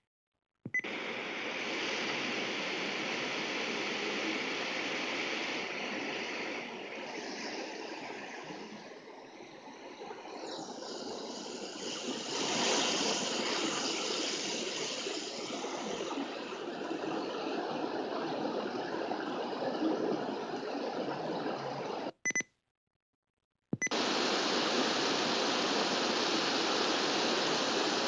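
Loud steady static hiss from a radio speaker turned all the way up. It cuts out twice, just after the start and about 22 seconds in, with a click at each break.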